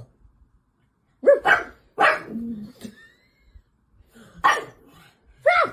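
Dog barking: three quick barks about a second in, then two more single barks near the end.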